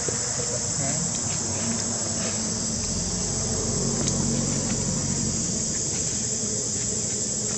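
Insect chorus in the surrounding forest: a steady, high-pitched buzz that does not let up.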